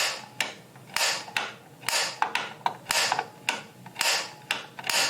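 Piezo igniter button on a gas water heater's pilot control pressed again and again, about ten sharp snapping clicks at roughly two a second: repeated tries to light the pilot flame.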